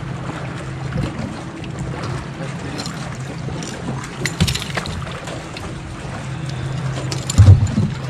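Steady low electric hum aboard a bass boat, with scattered light knocks and a couple of heavy low thumps near the end.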